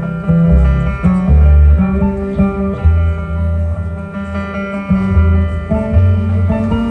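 Instrumental music: a deep plucked bass line moving note to note under held chords.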